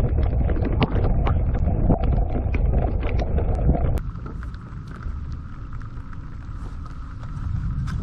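Wind buffeting the camera microphone with a heavy rumble, cutting off abruptly about halfway through. After that comes a quieter rumble with a steady high whine and scattered small ticks.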